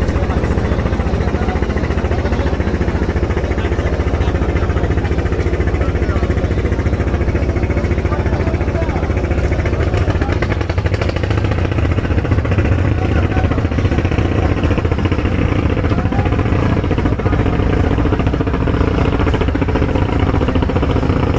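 Speedboat engine running steadily at speed, growing slightly louder about halfway through.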